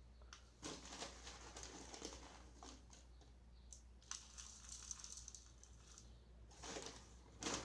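Faint rustling and crinkling of a plastic bag of salt being handled, with a few small clicks.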